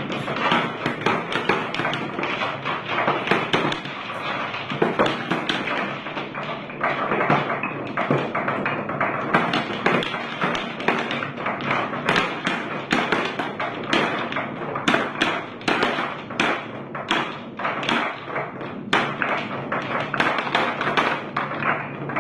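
Marbles rolling and clattering down a marble run track, a continuous stream of rapid clicks and knocks as they hit each other and the track pieces.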